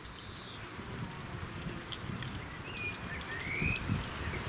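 Birds chirping outdoors: a few short chirps and whistles, over a low background rumble.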